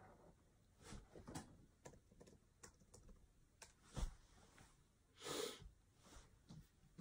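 Faint handling sounds: scattered soft clicks and knocks, with one brief noisy swish about five seconds in.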